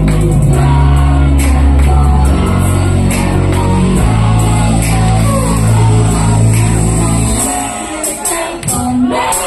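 Loud idol-pop song played through a hall's PA, with a heavy bass beat and girls' voices singing over it. The bass drops out for the last couple of seconds, leaving the voices and a rising sweep.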